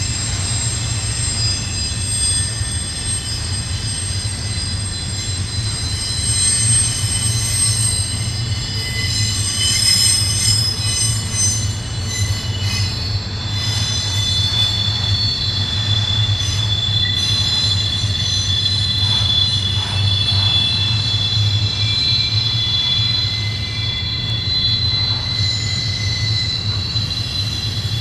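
Double-stack intermodal well cars rolling through a sharp curve, with their wheels squealing against the rail in several high, steady tones that shift and overlap, over a continuous low rumble of the wheels on the track.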